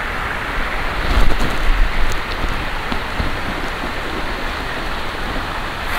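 Creek water running, a steady rush, with a few low thumps about a second in.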